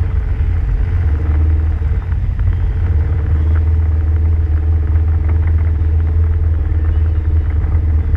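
Off-road vehicle's engine running at low speed as it creeps along, a steady low drone.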